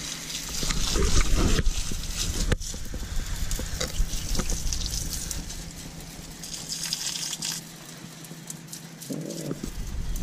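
A jet of water spraying and splattering onto engine pulleys, the drive belt and metal pipes in a car's engine bay, rinsing off dish-detergent foam. It makes a steady hiss that swells and fades as the stream moves, with a few sharp ticks.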